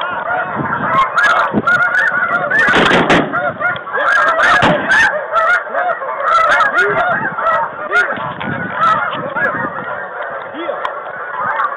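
Snow geese calling: a dense, continuous chorus of many overlapping short honks.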